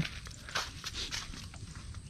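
Faint scuffing footsteps and rustling, a few soft irregular scuffs in the first half, over a low steady rumble.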